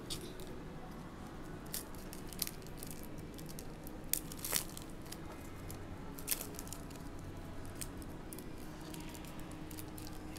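Foil wrapper of a basketball trading-card hobby pack being torn open and crinkled by hand, in irregular sharp crackles, the loudest a little over four seconds in.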